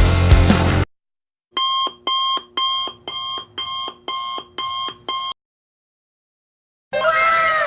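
Electronic alarm clock beeping: about nine short, identical beeps at roughly two a second, then it stops. Near the end a different sound effect begins, several tones sliding downward together.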